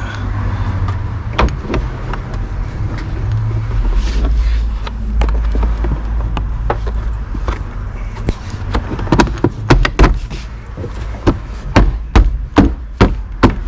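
Large plastic interior pillar trim panel of a 2016 Mazda CX-5 being fitted back in place: a string of sharp clicks and knocks as it is pressed and tapped onto the pillar, coming thick and fast over the last few seconds.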